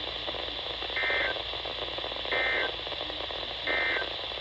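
Emergency Alert System end-of-message signal: three short, identical bursts of warbling SAME digital data tones, evenly spaced about a second and a third apart, over steady radio hiss. It marks the end of the flash flood warning broadcast.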